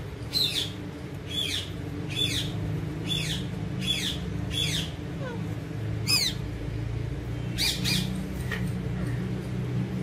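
Alexandrine parakeets giving short, sharp squawks that fall in pitch, about one a second, with a quick pair of calls near the end.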